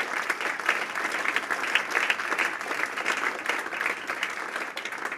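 Audience applauding: many hands clapping in a dense, steady patter that thins out slightly near the end.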